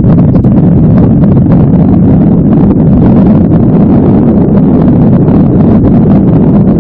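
Strong wind buffeting the microphone: a loud, steady low rumble with irregular crackling.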